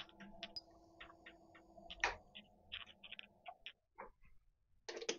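Myford Super 7 lathe spindle running with a steady low hum, then spinning down and stopping about three and a half seconds in. Irregular light metallic clicks and ticks run alongside, with one louder click about two seconds in and a quick cluster of clicks at the very end.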